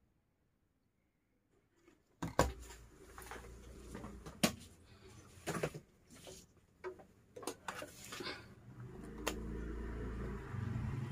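Irregular sharp clicks and knocks with rustling, starting about two seconds in, over a low rumble that grows stronger near the end.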